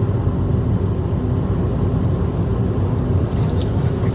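Car driving along: a steady low rumble of engine and road noise, with a few light ticks near the end.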